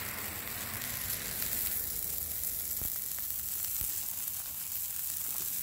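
Sausage patties and shredded-potato hash brown cakes sizzling on a Blackstone gas griddle: a steady frying hiss with fine crackles.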